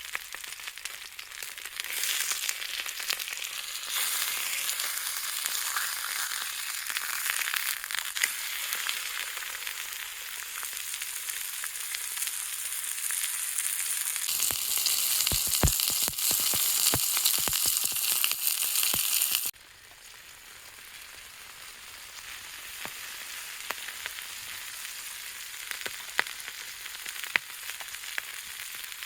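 Steak sizzling in a frying pan over a small campfire, a steady hiss with scattered pops. It grows louder past the middle, with a few knocks, then drops suddenly to a softer sizzle about twenty seconds in.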